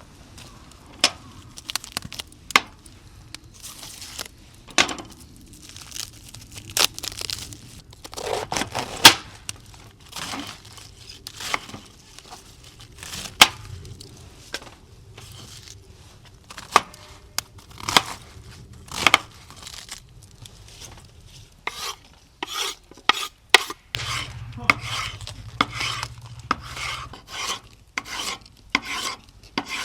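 Hands-on camp work: a long run of sharp clicks and knocks with scraping and rubbing in between, as gear, utensils or wood are handled.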